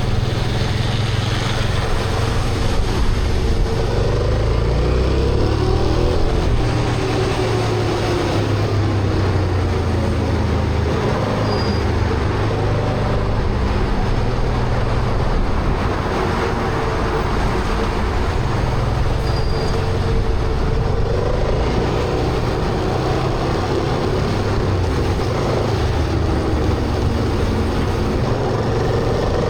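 Honda Transalp motorcycle engine running under way, its pitch rising and falling gently, over steady wind and road noise.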